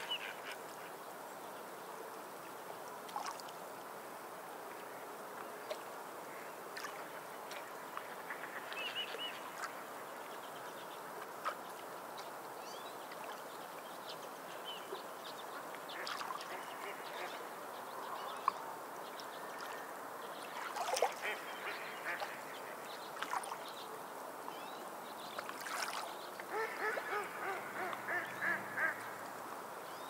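Small sea waves washing steadily onto a sandy beach, with birds calling now and then over the surf and a quick series of repeated calls about three seconds before the end.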